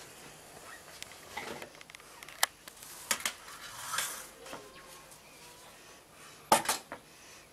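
Dishes and kitchen containers knocking and clinking as they are handled, a handful of sharp knocks, with the loudest cluster near the end.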